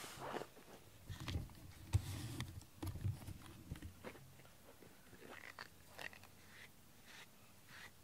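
A hand and a pink grooming brush rubbing over a cat's fur close to the microphone: soft rustling with scattered clicks, and a few low thumps in the first four seconds.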